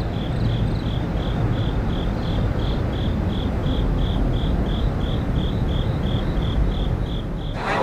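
Crickets chirping in a steady rhythm, about three chirps a second, over a low steady rumble. Both stop shortly before the end.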